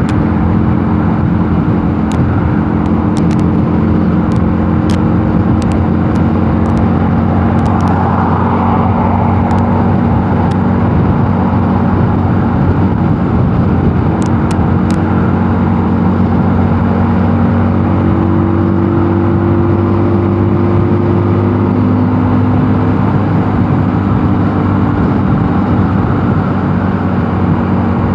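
Mondial Nevada 250 motorcycle engine running steadily at cruising speed, its hum holding nearly constant pitch with small shifts, under a steady rush of wind and road noise.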